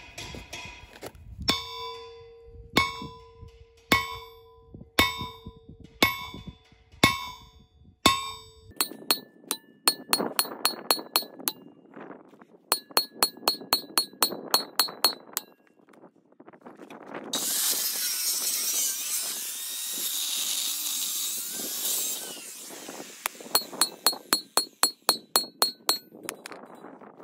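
Hammer blows on a thick steel plate, each with a ringing metallic clang: about one blow a second at first, then quick runs of about four a second. In the middle there are about five seconds of a steady harsh noise.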